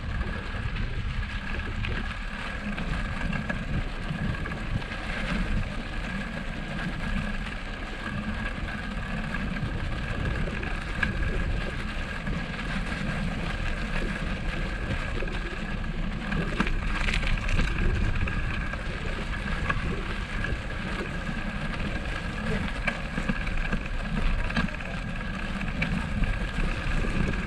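Steady low rumbling noise of a bicycle being ridden, with buffeting on the microphone. A thin, steady high tone runs underneath.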